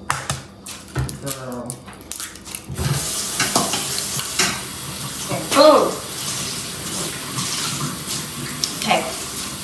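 Kitchen tap running steadily into a sink, starting about three seconds in, after a few short clicks and knocks.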